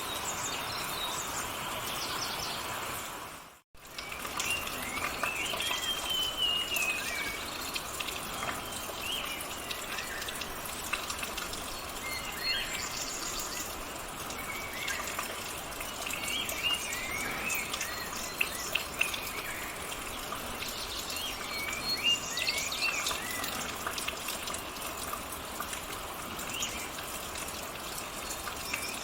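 Wild forest birds calling, many short chirps and rising-and-falling whistles, over a steady hiss of rain. The sound cuts out abruptly for a moment about four seconds in.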